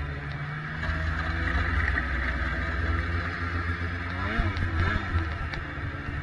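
Arctic Cat XF 8000 snowmobile's two-stroke 800 twin running under throttle, getting louder about a second in, with the revs dipping and rising a few times near the end.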